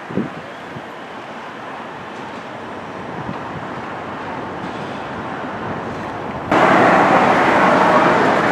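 Steady outdoor background noise with a brief knock near the start. About six and a half seconds in, it cuts abruptly to a much louder, denser noise.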